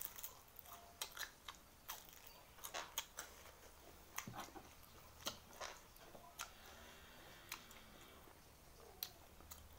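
Close mouth sounds of a person eating: a bite into a fried fritter, then chewing and lip smacks heard as scattered sharp clicks, with a few louder smacks.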